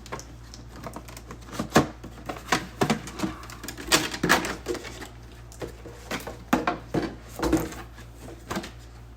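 Protective plastic packaging being handled and pulled off a boxed replica helmet: irregular clicks, taps and crackles of stiff plastic.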